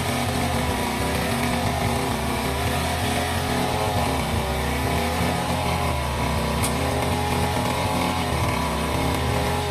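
Backpack brush cutter's engine running steadily at working speed while its cutting head trims grass. One brief sharp tick partway through.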